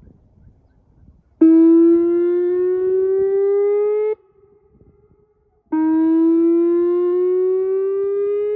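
Whelen 2810 electronic outdoor warning siren sounding two blasts of a few seconds each. Each blast is a tone that climbs slowly in pitch and then stops abruptly, followed by a fainter echo off the surrounding mountains. The first blast starts about a second and a half in.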